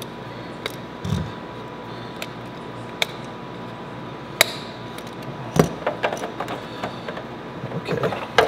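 Scattered light clicks and taps of a small hand tool and cut plastic pieces being handled and fitted, with a quicker run of small ticks and scrapes in the last few seconds.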